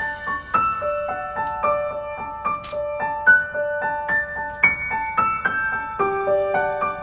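Background music: a gentle melody of single struck notes on a piano-like keyboard.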